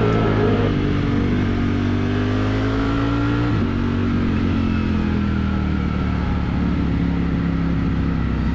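Ducati Streetfighter V4's 1,103 cc V4 engine pulling under acceleration, its pitch rising steadily and then dropping sharply about three and a half seconds in as it shifts up a gear. It then holds a steady, slowly easing note.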